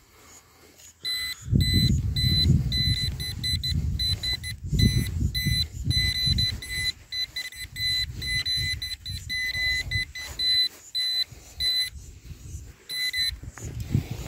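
A handheld metal-detecting pinpointer beeping in quick runs of short, fixed-pitch beeps as it is pushed through loose dug soil to locate a target. Under the beeps, loose earth rustles and scrapes against the probe and the hand.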